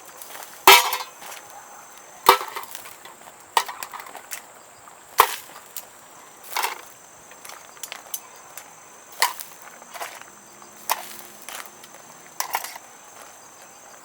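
A series of about a dozen sharp knocks, irregularly spaced roughly a second apart, the loudest near the start.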